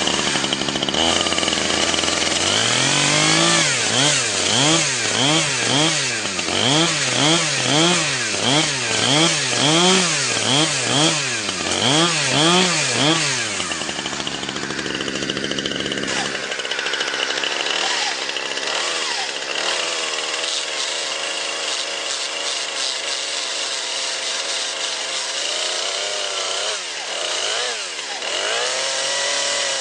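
Chainsaw engine running, its throttle revved up and down about once a second for some ten seconds, then running more steadily at a high pitch with a few more rises and falls near the end.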